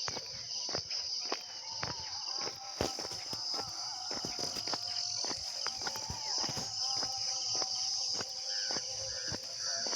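A steady high-pitched drone of insects, crickets or cicadas, with footsteps along the road, several a second. Near the end a bird gives a short call four times in quick succession.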